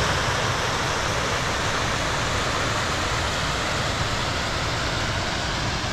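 Small hillside waterfall pouring over a rock ledge into a pool: a steady rush of falling water.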